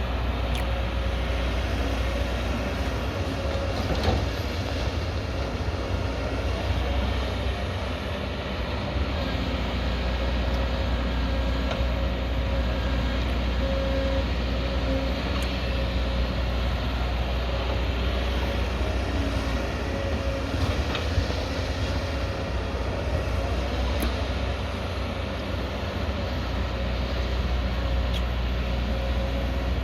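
A hydraulic excavator's diesel engine working steadily under load, with a steady whine over the rumble and a few sharp knocks.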